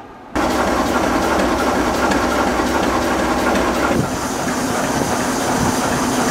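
Diesel shunting locomotive (ChME3) idling with a steady low hum and rumble, slightly quieter after a short dip about four seconds in.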